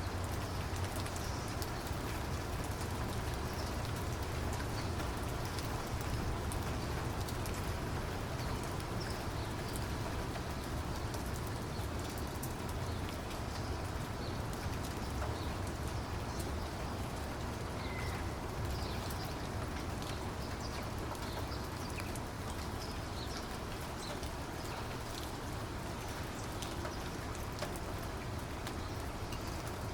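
Steady rain falling, a constant hiss dotted with the ticks of individual drops over a low rumble.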